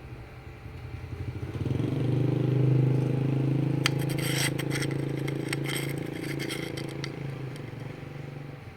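A small electric rotary tool spinning a green grinding bit: the motor runs up to a steady pitch, and from about 4 to 7 s in the bit grinds against a workpiece with scratchy clicking, before the sound eases off near the end.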